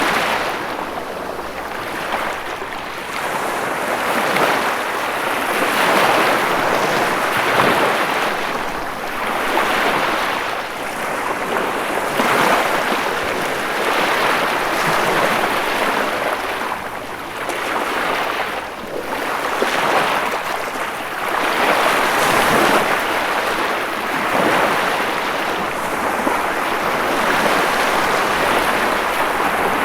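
Ocean waves breaking and washing on a shore, a continuous surf that swells and ebbs every few seconds.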